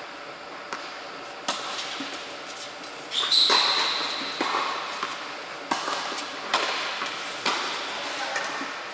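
Tennis balls struck by rackets and bouncing on a hard indoor court: a string of sharp knocks about one a second, echoing in a large hall. The loudest knock comes about a third of the way in, with a brief high squeal over it.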